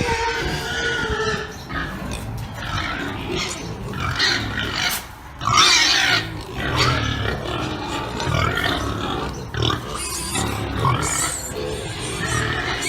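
Pigs calling without a break, with a louder, shriller call about halfway through.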